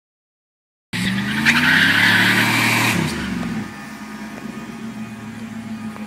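2002 Dodge Dakota pickup doing a burnout: it starts suddenly about a second in with the engine revving up and the tires squealing loudly. After about two seconds the squeal stops and the engine falls back to a steady, quieter hum.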